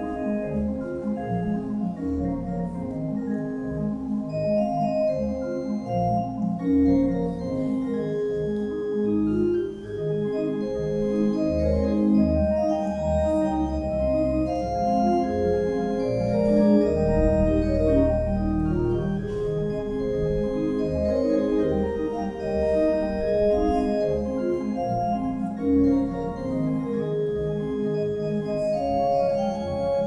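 Organ music: held chords and moving melody lines over deep pedal bass notes.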